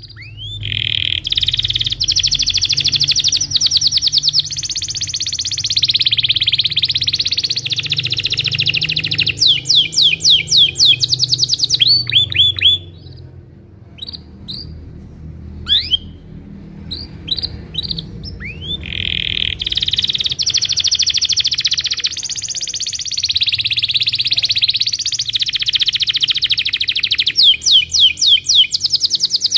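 Domestic canary singing: two long, rapid rolling trills of several seconds each, each followed by a run of quick rising 'cuit' whistles, with sparse single chirps in the stretch between them.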